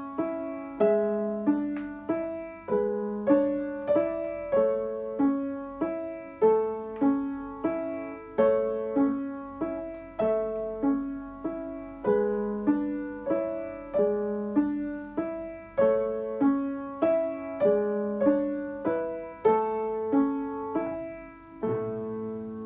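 Upright piano played by a child: a simple piece of evenly paced struck notes with a lower accompaniment, ending on a held final chord about a second before the end.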